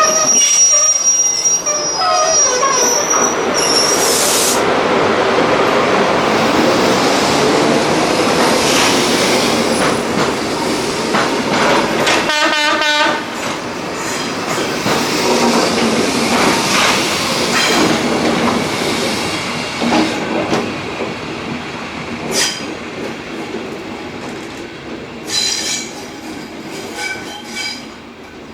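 A train hauled by GBRF class 73 locomotives passes close by, with wheels squealing on the rails and the knocks of wagons over rail joints. The sound fades away near the end.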